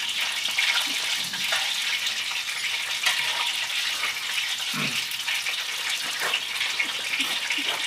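Battered fish pieces frying in a large pan of hot oil: a steady sizzle with fine crackling.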